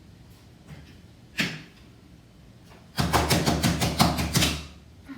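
A plastic toy being handled: one sharp click, then about a second later a fast rattle of clicks lasting about a second and a half.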